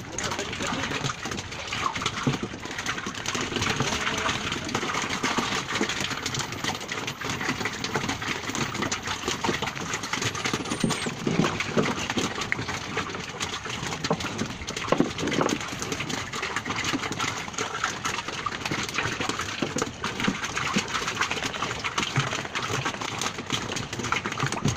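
Fish flapping and slapping inside a woven bamboo fish trap and tumbling out onto a wooden boat deck, with the trap's bamboo rattling: a continuous, irregular clatter over the wash of the sea.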